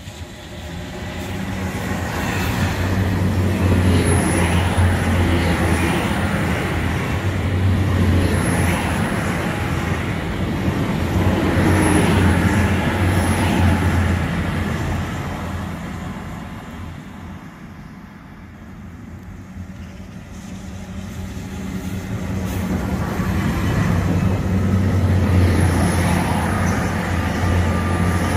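GWR Hitachi Intercity Express Train running on its underfloor diesel engines as it pulls in and stands at the platform: a steady deep hum that swells, eases off about two-thirds of the way through, then swells again near the end, with faint high squeals now and then.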